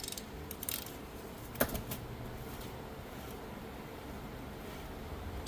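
A few faint, scattered clicks and taps of hand tools working on a manual transmission's case bolts, over a low steady background hum.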